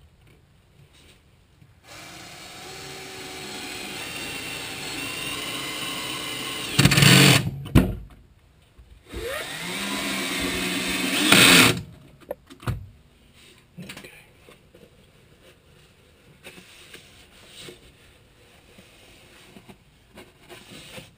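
Power drill driving pocket-hole screws into the wooden framing: two runs of the motor, the first about five seconds long and the second about three, each getting louder and ending in a loud peak as the screw drives home. A few light knocks follow.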